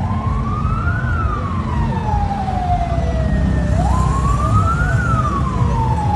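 A siren wailing up and down. Each cycle rises quickly to its highest pitch, then glides slowly back down, about once every four seconds, over a steady low rumble.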